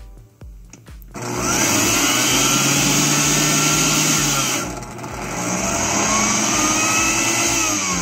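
Oster Xpert blender's motor run by its self-diagnostic direction test: it starts about a second in and whines up in pitch, drops out briefly just before halfway, then spins up again for a second run, the test turning the motor one way and then the other to check rotation in both directions.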